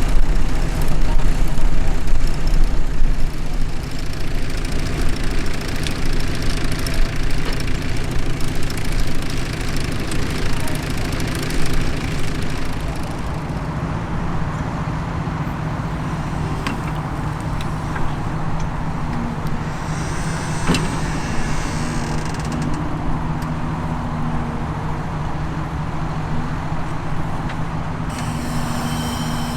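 Tractor engine running steadily, as when pulling a plough. It is loudest for about the first twelve seconds, then settles to a steadier, somewhat quieter running.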